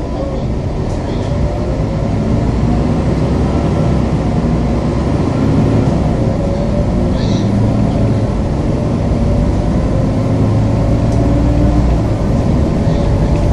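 City bus engine running with a steady low rumble, heard from inside the passenger cabin as the bus moves along. The rumble gets louder about two seconds in as the bus picks up speed.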